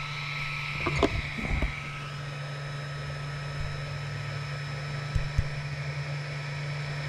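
Cooling fans of an XVICO X3S 3D printer running with a steady hum just after a print has finished. There are a few light knocks and clicks about a second in and again around five seconds.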